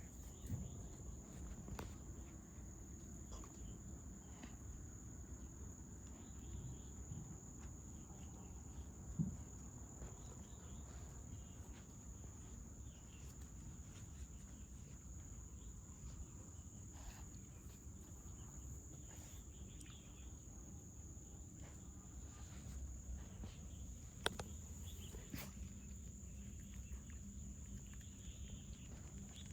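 Insects trilling steadily at a high pitch, over a low, even background rumble, with a couple of faint knocks.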